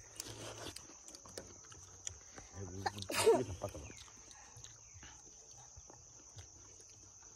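Steady high-pitched drone of insects, with one short, loud vocal sound about three seconds in.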